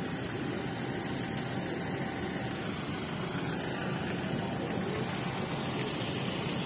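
Motor scooter's small engine running, with steady road and traffic noise.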